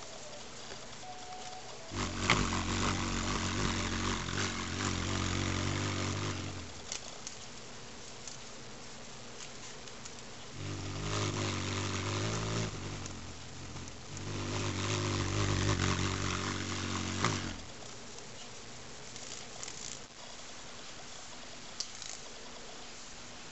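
Hummingbird's wings humming as it hovers close, in three bouts of a few seconds each with quieter gaps between.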